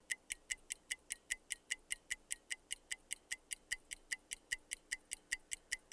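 Mechanical watch movement ticking steadily, about five sharp ticks a second: the Vostok Amphibian's automatic movement running.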